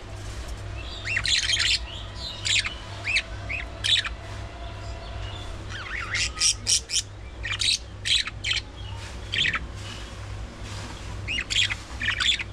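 Budgerigars chirping and squawking in short, sharp calls that come in clusters every second or two, over a steady low hum.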